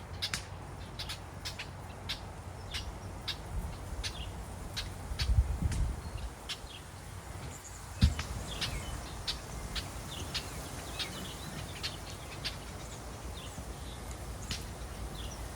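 Outdoor ambience of short, high bird chirps repeating irregularly, about one or two a second, over a low rumble of wind on the microphone. The rumble swells about five seconds in, and there is a single thump about eight seconds in.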